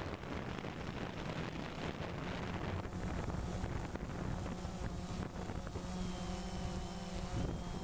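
Quadcopter motors and propellers humming steadily, with wind buffeting the microphone. A few higher tones join the hum for a couple of seconds past the middle as the drone manoeuvres.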